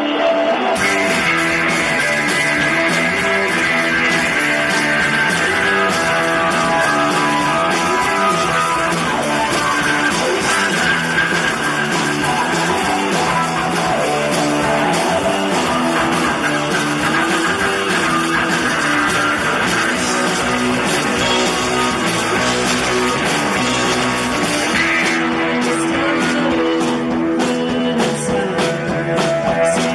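Live rock band playing loudly, with strummed electric guitars over a bass line, and drums and cymbals coming in about a second in.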